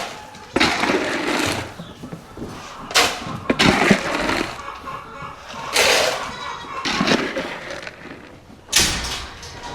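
Feed bucket and feed being handled among goats: irregular bursts of scraping and clattering, about six in a row.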